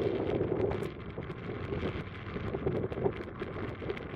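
Airbus A320 jet engines at takeoff power as the airliner lifts off and climbs away, heard from a distance as a steady rumbling noise that eases slightly about a second in. Wind buffets the microphone throughout.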